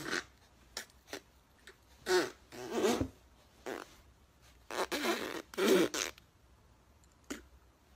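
A woman's giggling squeals in two longer bouts, with short snuffly clicks between them, as a small fluffy white dog licks and nuzzles her face.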